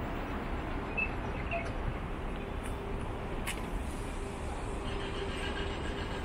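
Distant city street traffic: a steady wash of vehicle noise with a faint steady hum through the middle seconds, and a couple of short high chirps about a second in.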